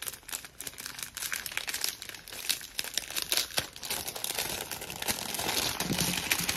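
Thin translucent paper envelope crinkling and rustling in the hands as it is opened and a sticker sheet is slid out, a run of small crackles that thickens into a steadier rustle about four seconds in.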